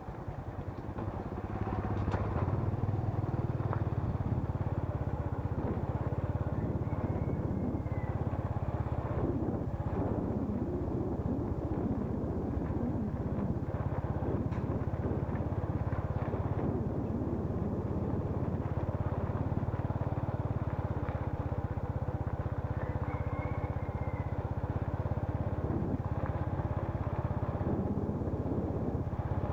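Motorbike engine running steadily as the bike rides along a rough lane, getting louder about a second in. Two brief high chirps sound over it, about seven seconds in and again near the end.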